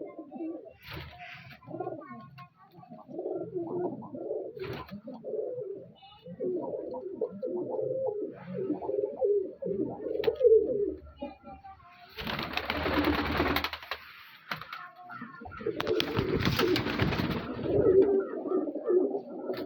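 Pet pigeons cooing over and over in low, pulsing calls. Two louder bursts of rustling noise, each a couple of seconds long, cut in during the second half.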